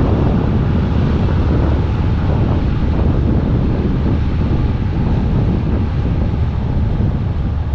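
Wind buffeting the microphone: a loud, steady low rumble with no clear pitch.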